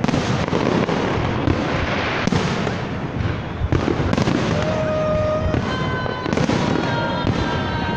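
Fireworks display: aerial shells going off in a rapid, continuous barrage of bangs and crackles. Several steady tones at different pitches join in the second half.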